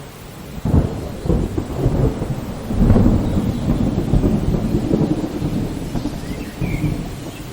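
A thunderclap breaks in under steady rain about a second in. It rumbles, builds to its loudest a couple of seconds later, then slowly dies away.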